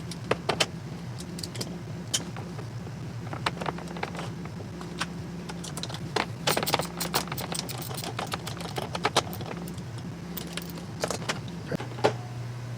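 Small metal hardware clicking and clinking, irregular light clicks with a quick run of them about halfway through, as pegs and parts are worked off metal drawer-slide rails. A steady low hum runs underneath.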